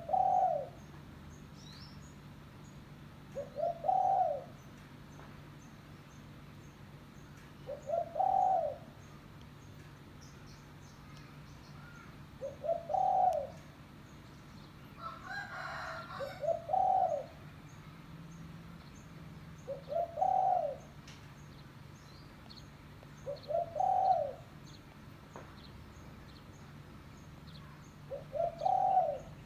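Spotted dove (tekukur) cooing: the same short phrase of a couple of quick notes and a longer one, repeated eight times about every four seconds. This is the dove's call as used to lure wild doves.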